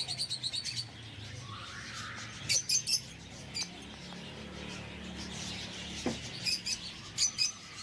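Small aviary birds chirping: bursts of rapid, high-pitched chirps at the start, about two and a half seconds in, and again near the end, over a faint steady low hum.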